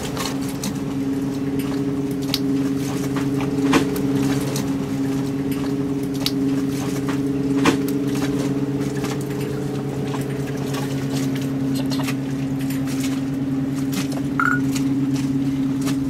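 A steady mechanical hum at one low pitch with its overtones, from a motor running, with scattered light clicks and taps over it and a brief squeak near the end.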